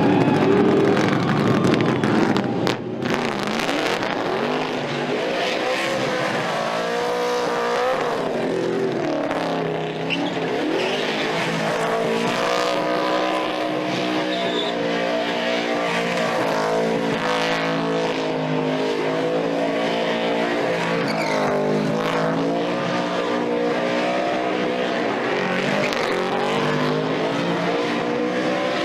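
NASCAR stock car's V8 engine revving up and down hard while its rear tyres spin and squeal in a burnout. The sound changes abruptly about three seconds in.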